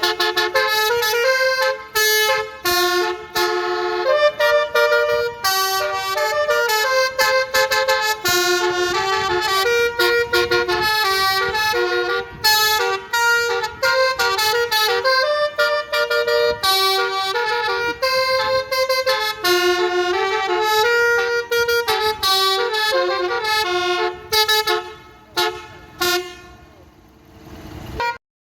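Basuri musical air horn ('telolet') with roof-mounted trumpets, playing a tune of short stepped notes, heard from inside the bus. Near the end the tune breaks into a few short blasts and fades.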